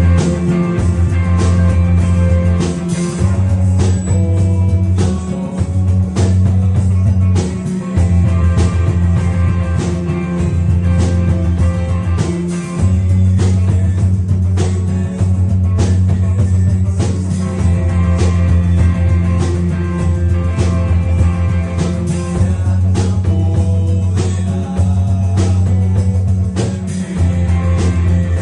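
Rock music with guitar, a heavy bass line and a steady drum beat.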